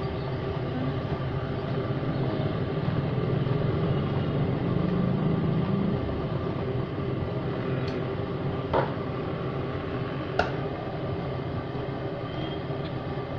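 Steady mechanical hum of kitchen machinery, with two sharp metal clinks about a second and a half apart from the steel idli plates and ladle being handled over the batter pot.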